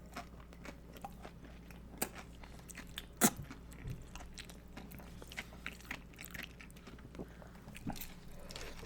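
Nacho tortilla chips being bitten and chewed close to the microphone: irregular crisp crunches and mouth clicks, the sharpest crunch about three seconds in.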